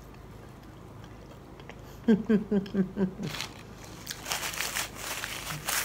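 A woman eating fried catfish gives a quick run of about six hummed "mm" sounds of enjoyment about two seconds in. From about four seconds in a paper napkin crinkles and rustles in her hands.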